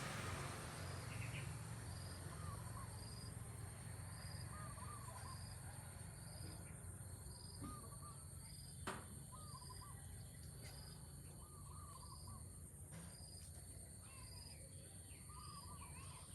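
Faint insect chorus: a steady high buzz with a cricket-like chirp pulsing about twice a second. Over it, a faint short hooked call repeats roughly once a second, and there is a single sharp click about nine seconds in.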